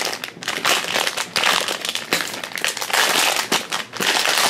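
Decorative wrapping paper around a Num Noms toy crinkling and rustling as it is unwrapped by hand, in quick irregular crackles.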